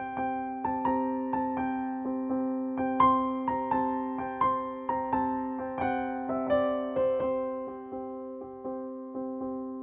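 Background music: a soft keyboard melody of struck, fading notes played over a steady held chord.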